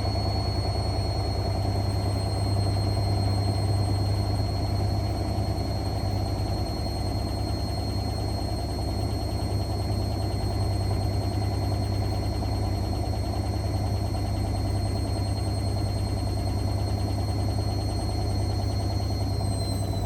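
Hotpoint WML540 washing machine running, its motor turning the drum at a steady speed: a steady high whine over a low hum.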